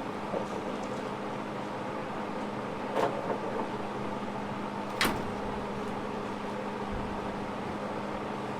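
Freshly milled boards and scrap sticker strips knocking as they are set down on a drying stack, with a few separate knocks about three and five seconds in. A steady engine hum runs underneath.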